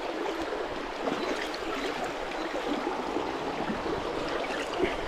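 Small trout brook running steadily: an even rush of flowing water.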